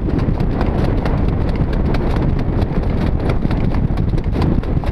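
A harness racehorse's hooves striking the dirt track in a quick, even rhythm at speed, heard from the cart right behind it, over a steady low rumble.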